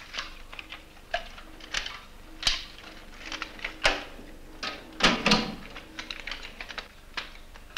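Irregular metallic clicks and clunks of a 35 mm cinema projector being loaded by hand: a film reel set on the upper spool and the upper magazine door shut, with the loudest clunks about five seconds in.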